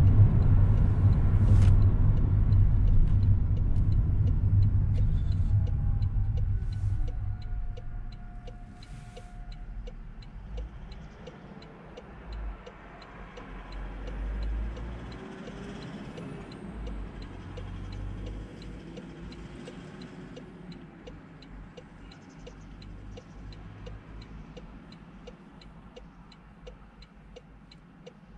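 Car cabin road and engine noise heard from inside a moving car: a loud low rumble that dies down over the first eight seconds or so to a quieter hum. A faint, evenly spaced ticking runs underneath.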